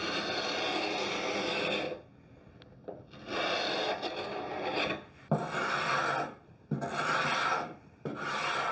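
Hand scraper dragged across a wooden vanity top, rasping off the old finish. It comes as one long stroke, a short pause, then four shorter strokes of about a second each.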